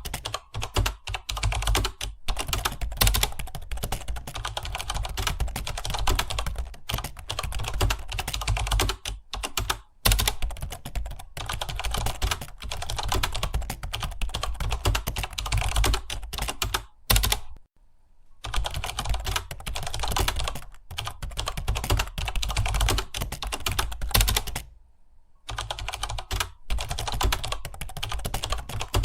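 Rapid, continuous typing on a computer keyboard, a dense stream of key clicks that stops briefly twice, once about two-thirds of the way in and again near the end.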